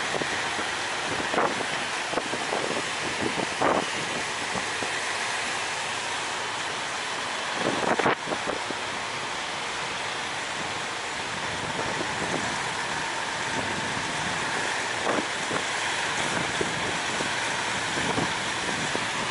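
Wind buffeting the microphone: a steady rush of noise broken by short, loud gusts every few seconds, the strongest about eight seconds in.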